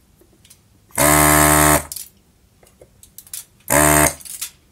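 Vacuum desoldering gun's pump buzzing in two short bursts of under a second each, about a second in and near the end, as solder is sucked off the motor board's terminal posts. Faint clicks of the tool on the board between the bursts.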